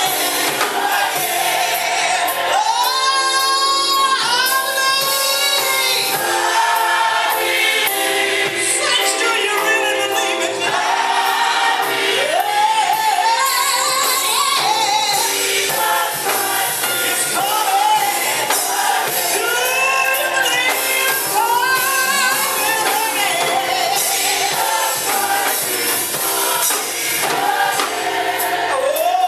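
Gospel choir singing with a female lead voice soaring and sliding between notes over the choir and band.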